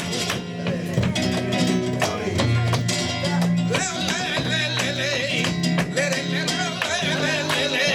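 Live flamenco tangos: flamenco guitar with a singer's wavering, ornamented cante, over many sharp percussive strikes.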